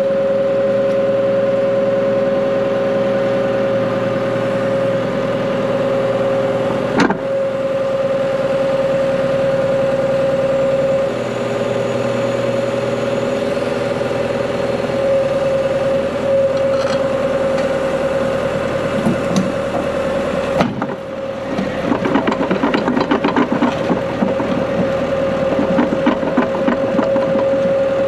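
Diesel engine of heavy equipment running steadily near idle, with one steady hum standing out above it. About two-thirds of the way through, a fast rattling starts up over the engine.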